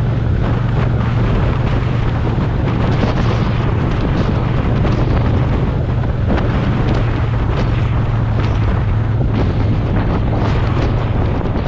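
Motorcycle engine running steadily at road speed, a constant low drone under heavy wind noise on the microphone.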